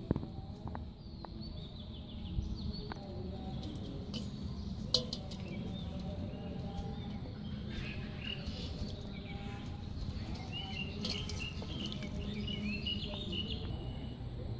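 Live fish fry flicking and splashing in shallow water in a steel bowl: light patter and clicks over a steady low rumble. Birds chirp in the background in the second half.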